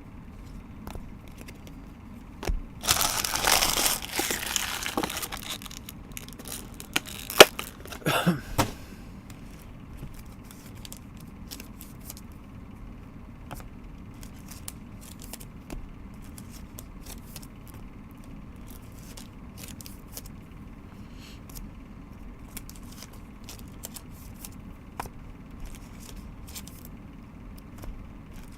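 Packaging being torn and crinkled open for about two and a half seconds, a sharp snap, and a second short rip, followed by many faint clicks and rustles of trading cards being handled.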